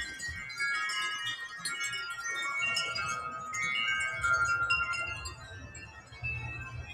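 Many wind chimes ringing together in a strong gust of wind, their tuned tones overlapping and sustaining. A low rumble comes in underneath a couple of seconds in.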